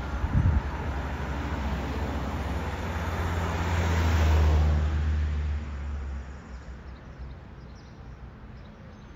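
School bus engine and road noise heard from the front seat of a 2023 IC CE bus. The sound swells to its loudest about four to five seconds in, then drops away about six seconds in to a much quieter hum.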